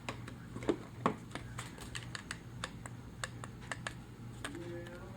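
Irregular light clicks and taps, a few a second, typical of small plastic parts being handled, over a faint steady hum.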